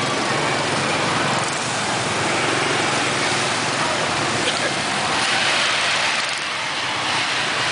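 Street traffic heard while riding through it: small motorbike engines running among other vehicles, blended into a steady rushing noise with no single sound standing out.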